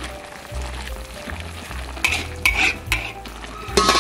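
Food sizzling in a pan while being stirred, with a few scraping strokes of the spatula a little past halfway and a louder sizzle near the end.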